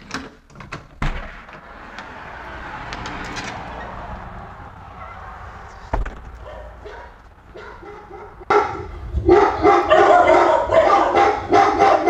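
A door shuts with a thump about a second in. From about two-thirds of the way through, a loud recording of dogs barking plays from a Samsung smart speaker in rapid repeated barks: an electronic barking-dog security alarm set off by the porch camera's motion sensor.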